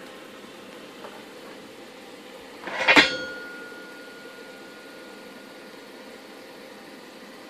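A single sharp metallic clank about three seconds in, the cast-aluminum roller carriage knocking against the steel Unistrut rail as it is lifted off, followed by a clear ringing tone that fades over a few seconds. A faint steady hum runs underneath.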